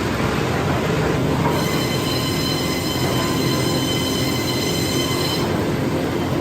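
Heavy machinery running loudly and steadily, with a high metallic squealing whine from about a second and a half in until near the end.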